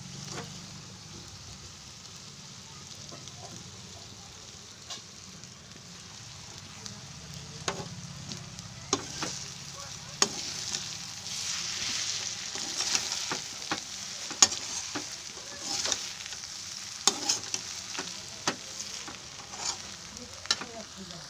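Leftover cooked rice sizzling as it is stir-fried in a metal pan, with a spatula turning and scraping it. The sizzle grows louder about a third of the way in, and from then on the spatula clicks and knocks against the pan again and again.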